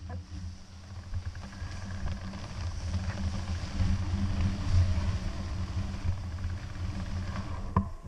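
Wind buffeting an action camera's microphone: a steady low rumble that swells in gusts, with a fainter hiss above it and a sharp click near the end.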